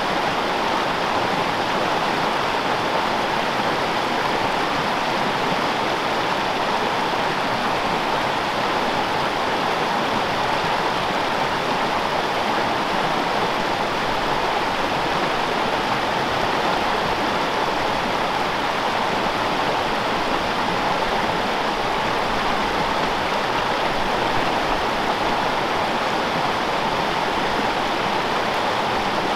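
Small freestone mountain stream running, a steady, even rush of water with no change in level.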